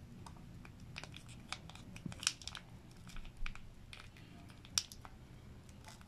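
Plastic toothpaste tube crinkling and crackling faintly as it is squeezed in the hand. Scattered small ticks run through it; the sharpest come about two seconds in and again near five seconds.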